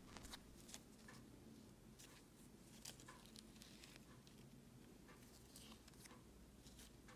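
Near silence: faint, scattered light taps and rustles of small embroidered fabric patches being picked up and set down on a canvas tote bag, over a low room hum.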